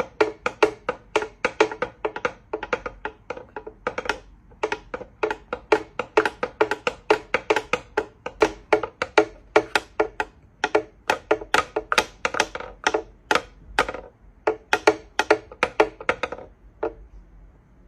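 Background music made of quick wooden knocking percussion hits, about four a second, stopping shortly before the end.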